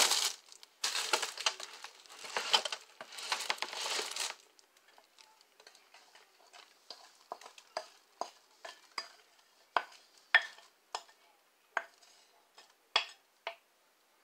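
Plastic slow-cooker liner crinkling and rustling for the first few seconds, then a run of light, separate clinks and knocks as a glass bowl of barbecue sauce is tipped and emptied into the slow cooker.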